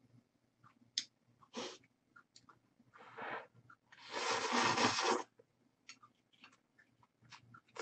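Slurping thick ramyeon noodles: a short slurp about three seconds in, then a longer, louder one about four seconds in, among soft wet mouth clicks.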